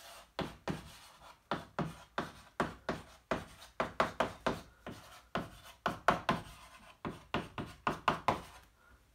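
Chalk writing on a blackboard: a quick, irregular run of short taps and scrapes, several a second, as the letters are drawn stroke by stroke.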